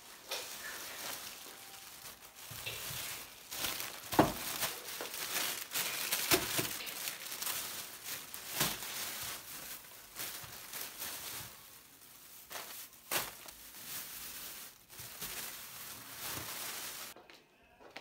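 Crinkling and handling of packaging in a kitchen, with scattered knocks of things being set down over a steady hiss that cuts off suddenly near the end.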